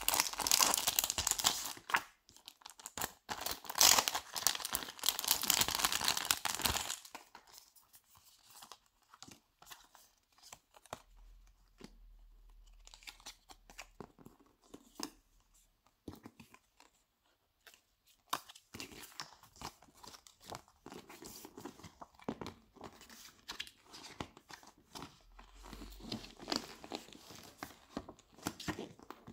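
Plastic wrapping and paper crinkling and rustling as a photobook and its printed inserts are unwrapped and handled. The crinkling is loud for about the first seven seconds, then gives way to quieter scattered rustles and light taps of cards and pages.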